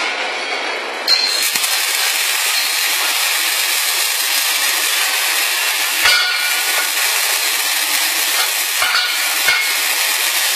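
Automatic scaffold welding machine striking its welding arcs about a second in, then a steady crackling hiss of arc welding with spatter, broken by a few light knocks.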